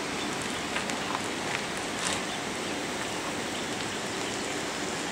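Off-road vehicle creeping over rocks and gravel: a steady rumble and hiss of engine and tyres, with a few scattered clicks and crunches of stones.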